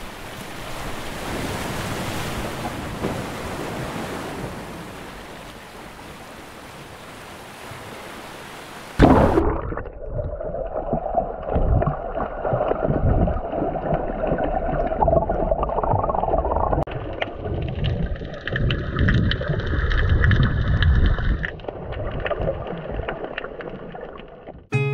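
Steady hiss of sea surf, then a loud splash about nine seconds in as the sound goes under the water. From there on it is muffled underwater sloshing and gurgling around a swimming snorkeler, in irregular surges.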